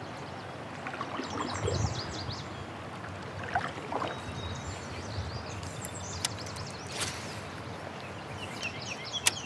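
Open-air river ambience heard from a kayak: a steady wash of water and breeze, with high bird chirps now and then and a few light knocks, the sharpest near the end.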